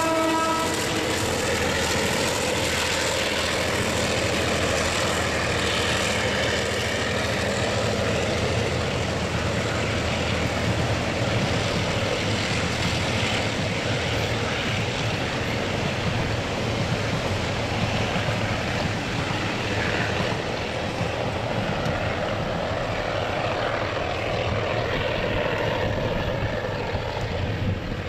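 Taiwan Railways R38, an EMD G12-type diesel-electric locomotive, gives a short horn blast at the very start as it passes. The locomotive and its train of freight wagons then roll by with steady wheel and rail noise throughout.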